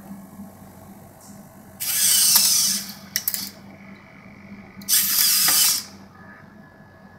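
Servo motors of a 3D-printed InMoov robotic hand whirring in two bursts of about a second each as the hand closes into a fist and then opens again, with a few sharp clicks between the bursts.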